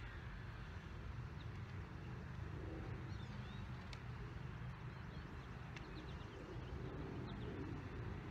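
Outdoor ambience: a steady low rumble with faint bird chirps every few seconds.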